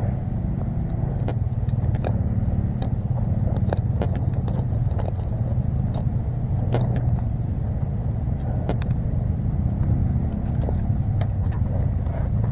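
Steady low rumble of a running motor-vehicle engine, with scattered light clicks and crackles.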